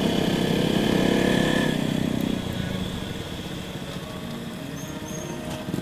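Motorcycle engine running on the move with wind noise; about halfway through the engine note eases off and gets quieter, as when the throttle is rolled off.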